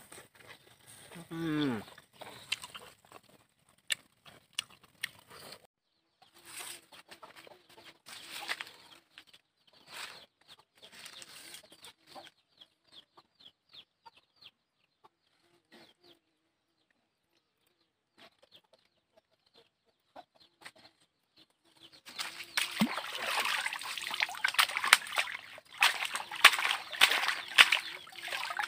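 Water splashing and sloshing as a plastic basin is dipped and swished through pond water, loud and continuous over the last several seconds. Before that, scattered faint sounds with chickens clucking.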